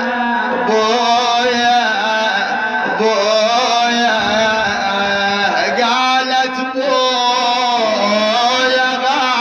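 A man's voice chanting a mournful Arabic elegy (na'i) in long, held, wavering melodic lines, with short breaks between phrases.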